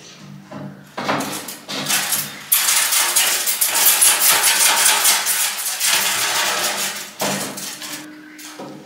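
Clattering and rattling inside the metal firebox of a wood heater where a pale-headed rosella is trapped, as hands reach in for the bird. Knocks come first, then a dense burst of rapid rattling from about two and a half seconds in lasts around three seconds, then a few more knocks.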